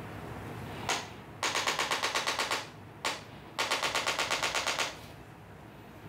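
Handheld chiropractic impulse adjuster firing against the lower back: a single click, then a rapid burst of clicks at about ten a second for just over a second, then another single click and a second burst. The rapid light thrusts are meant to fire up the small muscles that stabilise the spine.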